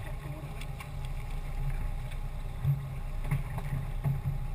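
Low steady rumble on a small open fishing boat, with several sharp knocks against the hull and water splashing near the end as a snoek is hauled up to the side by handline.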